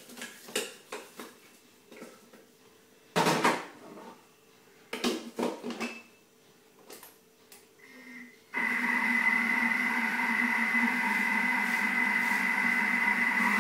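Thermomix lid being knocked and clicked into place on the mixing bowl, then about two-thirds in the motor starts and runs with a steady whine, turning the butterfly whisk to cream butter and sugar.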